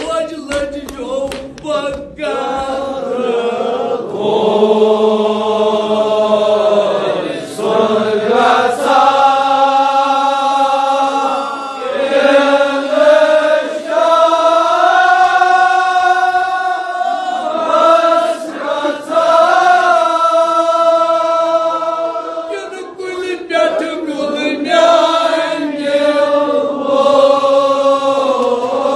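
Group of men chanting a Kashmiri marsiya, a Shia mourning elegy, together. The voices hold long, drawn-out notes in phrases of several seconds, with brief breaks between phrases.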